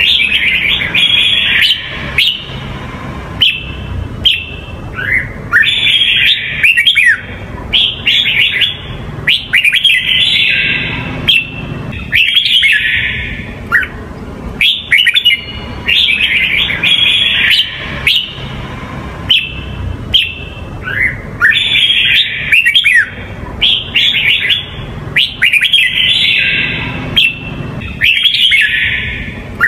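Red-whiskered bulbul of the Huế song type singing: short, bright, warbling phrases over and over, about one every second or two with brief pauses, over a steady low background hum.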